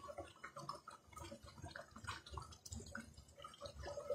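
Faint dripping and pouring of thin curry gravy, with light clicks of a spoon, as the curry is ladled from the pan onto a plate.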